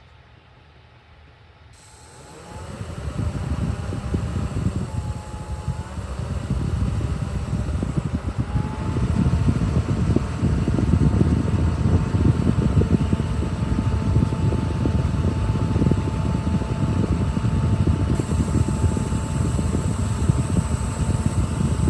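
A small portable evaporative air cooler's fan starts about two seconds in and keeps running: a thin motor whine that steps up in pitch twice, over a heavy low rumble of air blowing.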